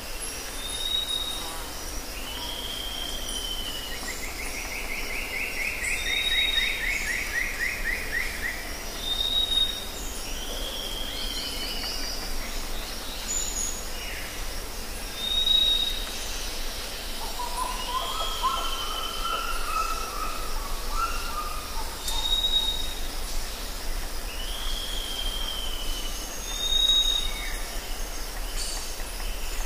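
Forest ambience of several birds calling. A short high whistle repeats every few seconds, often followed by a falling slurred note. A pulsing trill comes about four to nine seconds in, and a lower warbling phrase about eighteen seconds in, over a steady high hiss and a low rumble.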